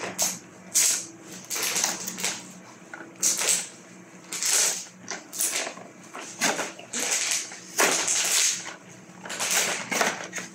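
Cardboard printer packaging being handled and pulled open: a string of irregular scrapes and crinkles as the flaps and insert box are worked by hand.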